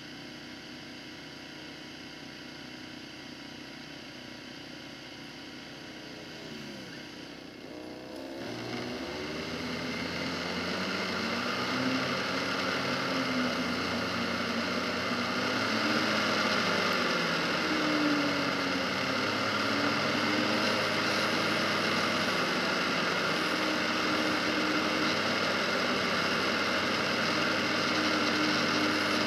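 Polaris Sportsman 570 ATV's single-cylinder engine idling, then pulling away about eight seconds in and running at a steady road speed. A rushing noise of wind and tyres grows as it gains speed.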